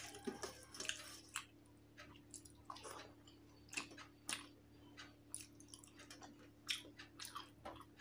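A person chewing a mouthful of rice and fish curry, with faint, irregular wet clicks and smacks of the mouth.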